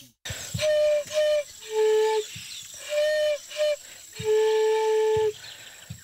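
A wooden flute playing a short repeated phrase: two brief higher notes followed by a longer, lower held note, played twice.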